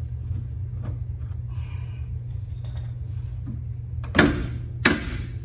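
Three sharp mallet blows on metal at a car's wheel hub, about two-thirds of a second apart, each with a short ringing tail. A steady low hum runs underneath.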